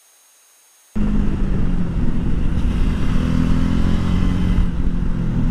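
About a second of faint hiss, then a motorcycle's engine running steadily under way at highway speed, with rushing wind noise over it.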